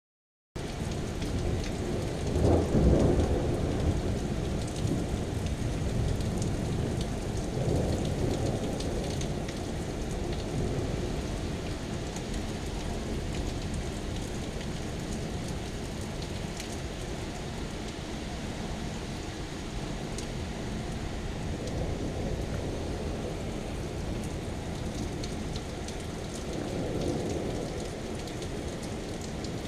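Heavy rain falling in a thunderstorm, with low rolls of thunder: the loudest about three seconds in, another around eight seconds and a third near the end. The sound cuts in suddenly after half a second of silence.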